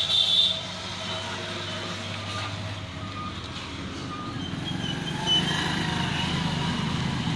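Motor vehicle engine running amid traffic noise; its low rumble grows louder about five seconds in. A short, loud, high-pitched squeal comes right at the start.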